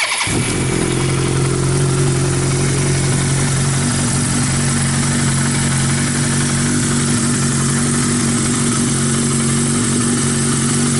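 Freshly rebuilt 1982 Suzuki GS1100 air-cooled inline-four, having just caught on its first run after the rebuild, settles into a steady idle through a four-into-one exhaust.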